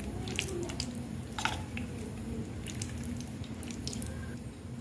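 Spoon stirring thick, wet semolina batter in a stainless steel bowl: soft squelching, with a few sharp clicks.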